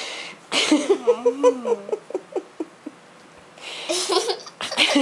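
Soft human laughter: breathy exhales and a short stretch of voiced, chuckling pulses.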